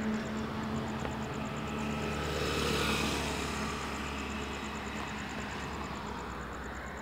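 Road traffic on a highway bypass. A departing vehicle's low engine hum fades over the first couple of seconds, then another vehicle passes with a swell of tyre and engine noise about three seconds in, and the traffic noise slowly fades.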